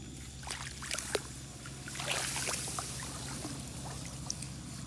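Shallow muddy water splashing and sloshing as hands work a fishing net through the water and grass. A few sharp splashes come in the first second, then a longer rush of water about two seconds in.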